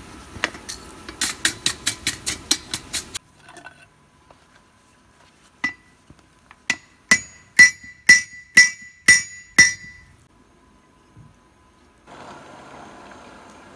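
Hand hammer striking a red-hot steel bar on an anvil. A fast run of about a dozen blows, about four a second, stops abruptly; after a single blow comes a run of six blows, each leaving a clear metallic ring.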